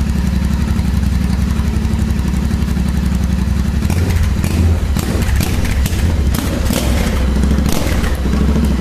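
Royal Enfield Interceptor 650's parallel-twin engine idling loudly through open header pipes with the silencers removed. A few clattering knocks sound over it from about halfway through.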